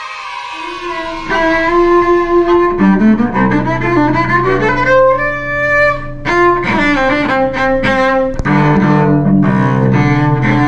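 A cello, freshly restored after repairs to cracks in its top plate, bowed as a sound check. It plays a run of held notes that change every half second or so, in a lower register from about three seconds in and busier near the end.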